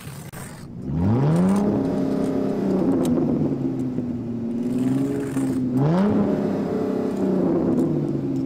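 Car engine revving twice: the pitch climbs about a second in and holds, then climbs again a little before six seconds and holds.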